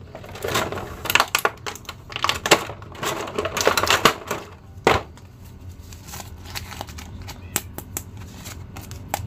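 Clear plastic blister packaging crackling and clicking as a hand pulls an action figure out of its tray: a dense run of crinkles and taps over the first five seconds, then sparser light clicks.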